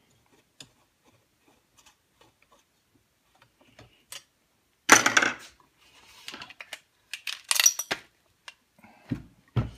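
Small screws clicking faintly as they are fitted into a Husqvarna 181 chainsaw's body, then about five seconds in a loud metallic clatter as a screw is dropped into the saw, followed by rattling and knocking as the saw body is tipped over to shake it out, and a couple of dull thumps near the end.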